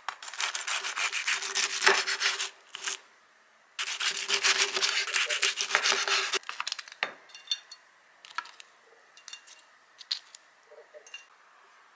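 Two bursts of rapid rubbing or scraping strokes, each a few seconds long, followed by scattered light clicks and taps.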